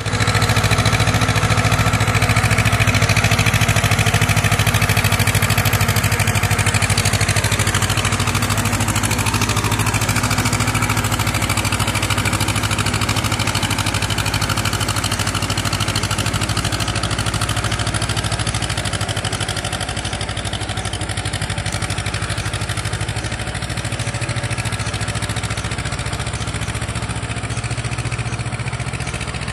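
Diesel tractor engine running steadily as it pulls a puddling implement through a flooded rice paddy, churning the water into mud. The engine sound slowly fades as the tractor moves away.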